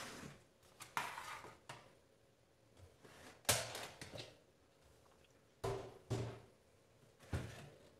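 Light knocks and thunks of hard plastic being handled on a kitchen counter: a blender pitcher and lid gripped and shifted on the blender base, and a plastic food container set down. About five separate handling noises spread over several seconds.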